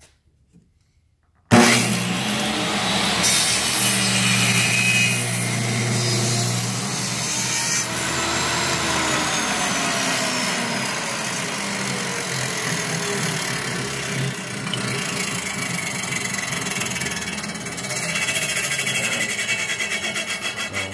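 Table saw switched on about a second and a half in, its motor and blade running loud and steady while a wooden blank is pushed through the blade on a small-parts sled. Near the end the saw is switched off and winds down.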